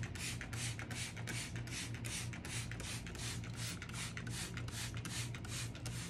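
Handheld trigger spray bottle squeezed again and again, giving a rapid, even run of short hissing sprays, about four a second, as liquid is misted over decorative window film on glass before it is smoothed.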